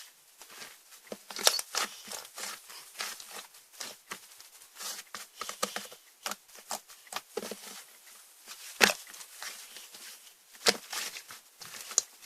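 Slime being squished and stretched by hand, giving off irregular crackling and popping clicks, with a few louder pops.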